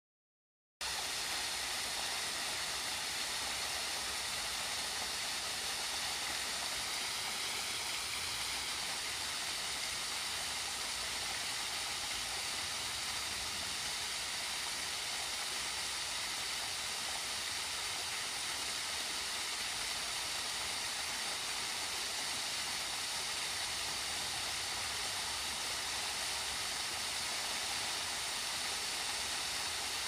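Narrow waterfall splashing steadily into a pond: a gentle, even hiss of falling water that starts about a second in.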